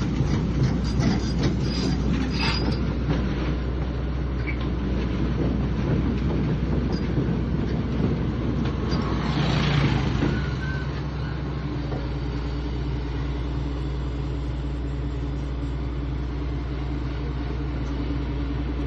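Heavy diesel machine engine running steadily, with metal clanks and squeals in the first few seconds, typical of a tracked excavator moving on a steel truck bed. About ten seconds in the engine sound settles to a steadier, slightly lower level.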